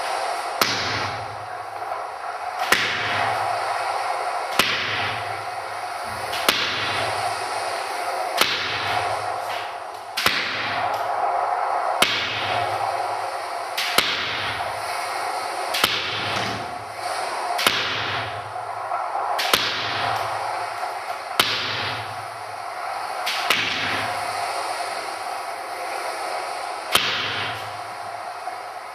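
Sharp cracks about every two seconds, each followed by a short swish that falls in pitch, over a steady hum: a rhythmic percussive part of a live performance's music.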